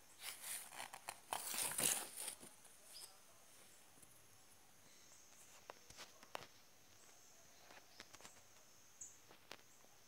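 Faint paper rustling as a picture-book page is turned and the book handled, in a couple of seconds of crinkly noise near the start, followed by a few scattered light clicks and taps.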